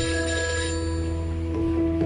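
Mobile phone ringing with an incoming call, heard as held musical notes over a steady low bass, with a change of note about halfway through.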